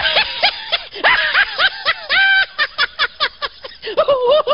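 High-pitched laughter in rapid cackling syllables, each rising and falling in pitch. About two seconds in there is one briefly held squealing note, and near the end a wavering cry.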